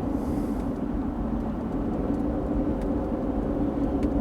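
Steady engine and road drone heard from inside a truck's cabin while driving at a constant speed.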